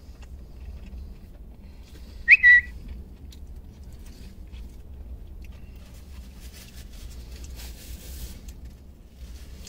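A short, loud whistled chirp about two seconds in: a quick upward slide, then a brief held note, in the manner of an added on-screen sound effect. Later comes the crackle of a paper napkin, over a low steady rumble inside the car.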